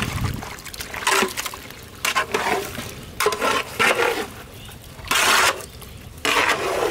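A spoon stirring thick, wet curry in a large aluminium pot: a series of short, irregular wet scraping and squelching strokes, the longest about five seconds in.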